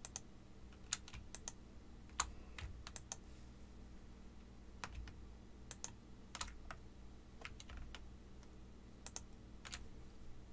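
Computer keyboard keys and mouse buttons clicking, about twenty light, irregular clicks, some in quick pairs, over a faint steady hum.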